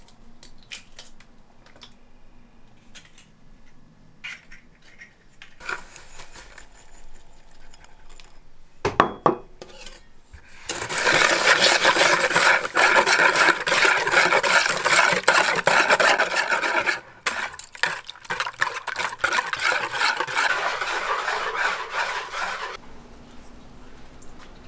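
A couple of sharp knocks on a bowl, then a wire whisk beating eggs and sugar in a large bowl: fast, continuous rattling and scraping against the bowl for about twelve seconds before it dies away near the end.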